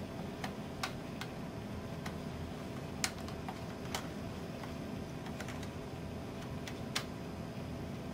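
Scattered small clicks and taps of plastic tablet parts being handled and pressed into place in a Fujitsu Stylistic tablet's frame, about five of them spread over several seconds, over a steady low background hum.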